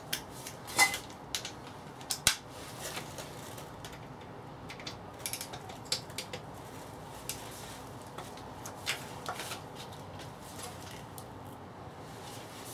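Socket wrench on an extension working the casing bolts of a gearbox: scattered metallic clicks and clinks, the sharpest ones in the first few seconds.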